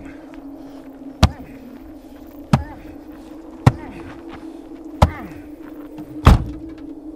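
Five heavy blows about a second apart, a stick beating a man tied up in a car boot, each followed by short muffled cries; the last blow is the loudest. A steady low hum runs underneath.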